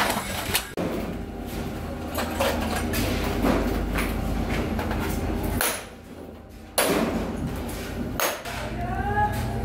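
A small hammer tapping on thin stainless steel sheet, a series of irregular sharp metallic knocks that break off for about a second in the middle.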